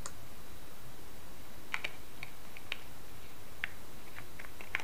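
Light plastic clicks and taps, about eight spread irregularly, as the battery cover is fitted back onto a handheld gas detector's plastic case, over a steady background hiss.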